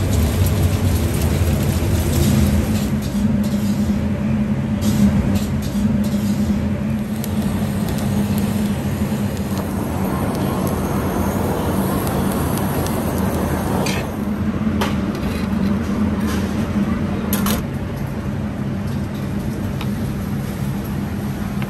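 Commercial kitchen ambience: a steady low machine drone, with a few brief clinks.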